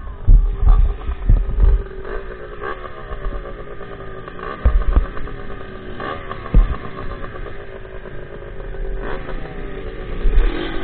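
Dirt bike engine idling, its pitch sagging slightly and lifting in a short rev near the end, with scattered low thumps on the microphone.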